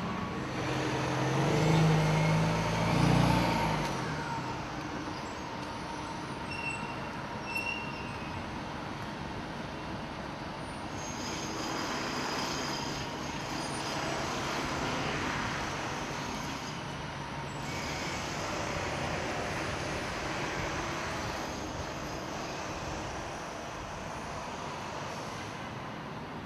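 Street traffic: a heavy vehicle's engine passes loudly about one to four seconds in, followed by a steady traffic hum.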